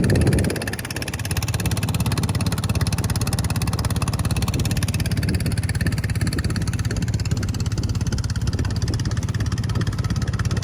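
Steady, loud roar of water pouring down a waterfall, a constant rushing noise with a heavy low rumble.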